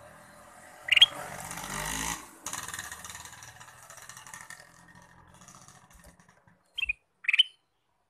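Caged kutilang emas (ruby-throated bulbul) calling: one short, sharp rising whistled note about a second in, then two quick whistled notes near the end. A loud rushing noise follows the first note and fades away over the next few seconds.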